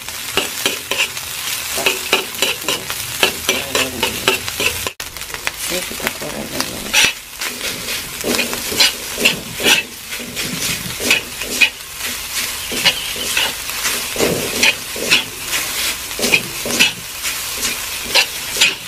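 Stir-frying in a wok: hot oil sizzling steadily while a metal spatula scrapes and tosses the food in quick repeated strokes, first sliced shallots, garlic and green chilli, then fried rice mixed with tiwul (dried cassava).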